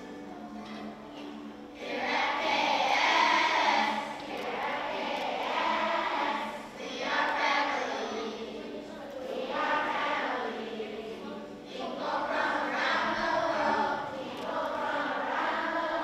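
A group of elementary-school children singing their school song together, starting about two seconds in, in short phrases with brief breaks between them; the lines are sung in echo style.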